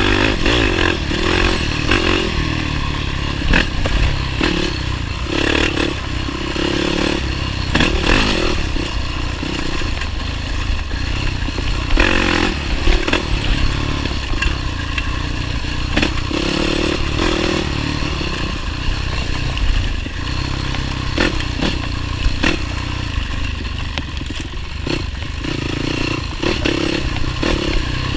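Motorcycle engine running with the throttle rising and falling, mixed with steady clattering and scraping knocks throughout.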